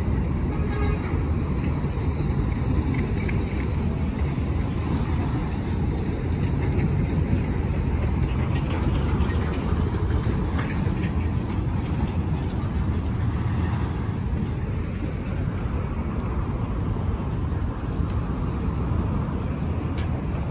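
Road traffic noise from a busy roadside: a steady low rumble of vehicles passing.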